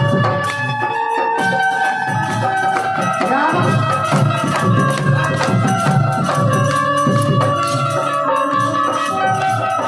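Banjo playing a melody of held notes over a steady percussion beat.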